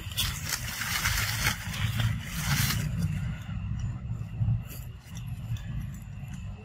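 Leaves and twigs of a small sapling rustling as a baby monkey climbs and shakes it, loudest for the first three seconds and then dying down to light rustles, over a steady low rumble.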